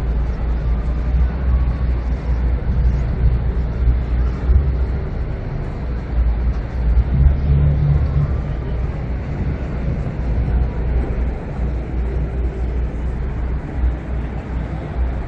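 Steady low rumble of city traffic, with a low drone that swells briefly about seven seconds in.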